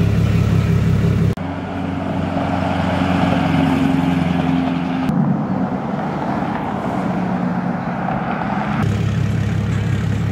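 Lifted pickup truck engines running, in several clips cut together: a steady low engine note that changes abruptly about a second in, again around five seconds in, and once more near the end.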